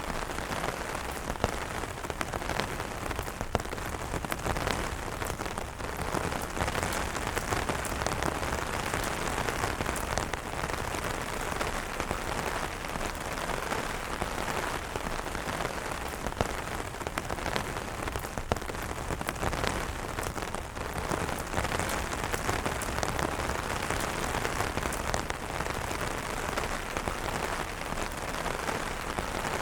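Steady rain pattering on umbrellas, a dense even hiss of drops with frequent sharper taps of individual drops striking the fabric.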